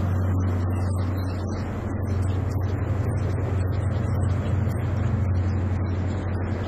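Diesel engine of a First Great Western High Speed Train (Class 43 InterCity 125) power car running, a steady low hum with engine noise over it, as the train moves off along the platform.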